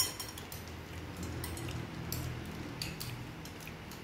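Metal spoons clinking and scraping against ceramic bowls while people eat, a few light clicks scattered through, over a low steady hum.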